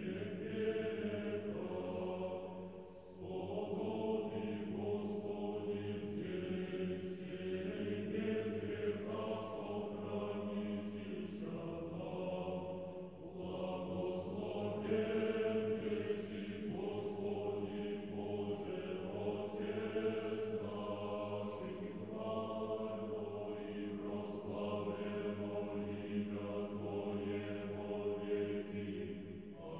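A choir singing slow chant in held chords that change every second or two, over a steady low bass note.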